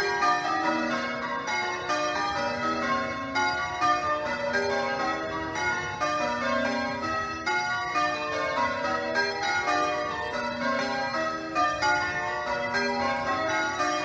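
A ring of eight church bells sounding in change ringing, one bell striking after another in unbroken rows. The back six are 1913 Warner bells and the two trebles were added in 2002.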